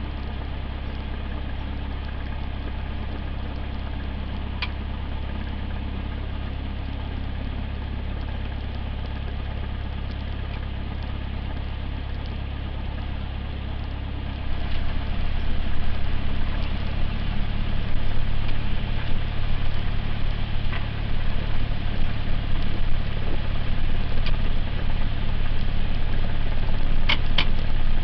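Cessna 172's propeller engine running at low taxi power, heard from inside the cabin as a steady low drone. About halfway through it turns louder and rougher, and a couple of brief high chirps come through.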